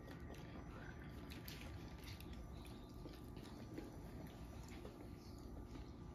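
Quiet room with a faint steady hum and a few soft scattered clicks and handling sounds from people eating at a table.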